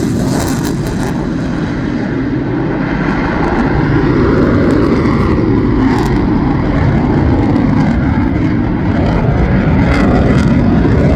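Fighter jet engine noise after a low pass: a loud, deep rumble whose high hiss fades away in the first second or so, leaving a steady rumble that swells and eases slowly.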